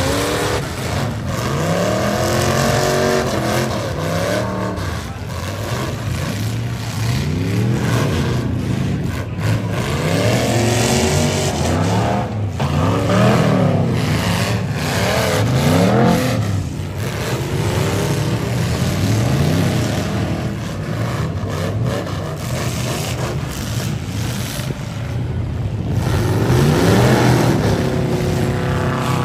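Several eight-cylinder demolition derby cars' engines running hard, revving up and dropping back over and over as the cars accelerate, reverse and ram one another, with a few sharp crunches of car-on-car impacts.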